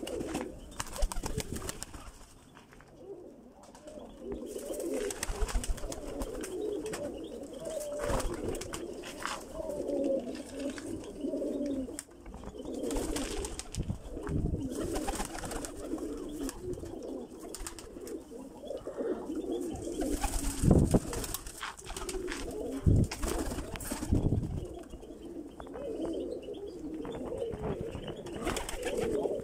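A group of domestic pigeons cooing continuously, overlapping one another, with a few short sharp thumps, the loudest about two-thirds of the way through.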